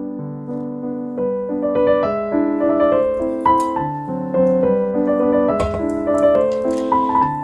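Background music: a gentle solo piano waltz, a melody of single notes over a steady accompaniment.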